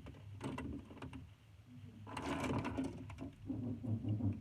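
Small plastic fidget toys and their packaging being handled: light clicks, then a stretch of rustling about two seconds in.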